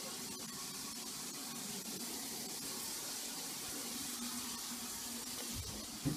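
Steady hiss with a faint, wavering low hum, ending in a brief thump just before the sound cuts off.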